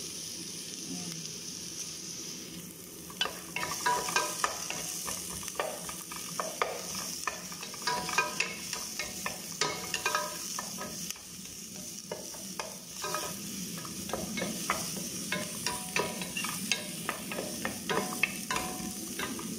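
Sliced onions and green chilies sizzling in a little oil in a non-stick pot. From about three seconds in, a wooden spoon stirs them, knocking and scraping lightly and often against the pot.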